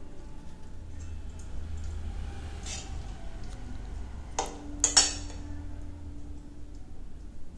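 Metal spatula working cooked chicken mince in a bowl: a soft scrape, then two sharp clinks of the spatula against the bowl about halfway through, the bowl ringing for a couple of seconds after.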